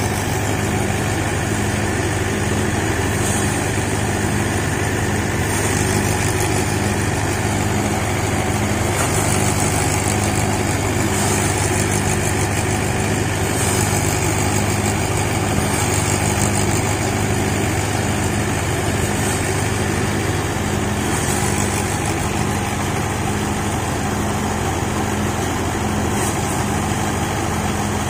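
Tractor-powered paddy thresher running steadily: an engine drone with a regular pulse about once a second, and short spells of higher hiss every few seconds as bundles of rice straw are fed into the drum.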